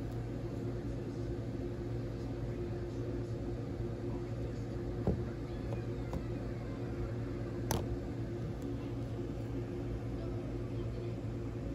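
Steady rain and wind noise under a low, even hum, with a soft knock about five seconds in and a sharp click nearer eight seconds in.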